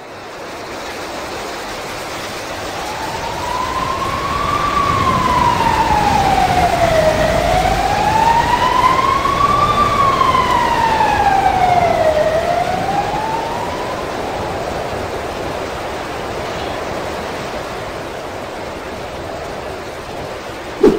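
Storm wind blowing as a steady rush of noise that swells louder in the middle and eases off toward the end. Over it, a few seconds in, a slow siren wails, rising and falling in pitch about two and a half times before fading out about two-thirds of the way through.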